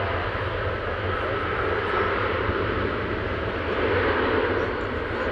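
Twin jet engines of a Qatar Airways Boeing 787 running as it rolls along the runway: a steady jet rush over a low rumble.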